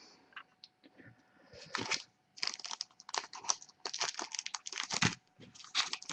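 Foil card-pack wrappers and trading cards being handled: after a few faint ticks, a run of quick crinkling and clicking starts about a second and a half in and goes on in clusters.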